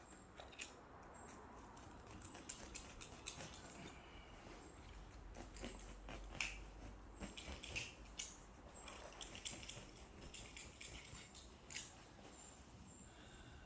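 Faint rustling and scattered small clicks and scrapes as foam carpet underlay is cut with a knife and handled, with a few sharper ticks about six to eight seconds in.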